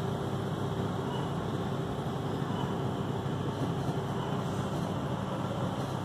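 Steady low hum of distant city traffic, even in level, with no meowing from the kitten.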